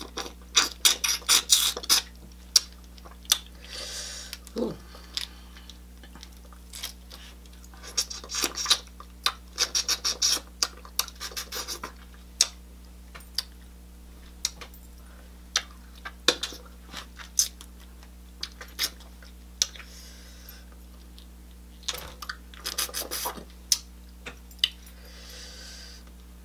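Close-miked seafood eating: smacking and chewing mouth sounds with crackling clicks from peeling shellfish, in three clusters: at the start, about eight to twelve seconds in, and about twenty-two seconds in.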